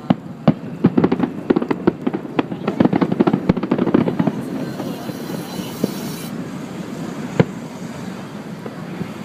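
Fireworks exploding: a rapid, dense run of bangs and crackles for the first four seconds or so, a high hiss around five seconds, then a single loud bang about seven seconds in.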